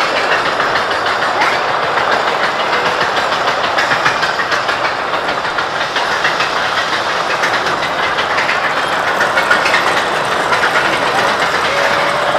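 Steel mine-train roller coaster climbing its chain lift hill and then rolling onto the track: a steady, loud mechanical clatter of lift chain and wheels, full of rapid clicks.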